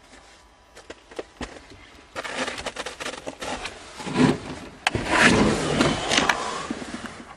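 Rubbing, scraping and knocking of hands working under a car's hood, with a few faint clicks at first and louder knocks around four to five seconds in.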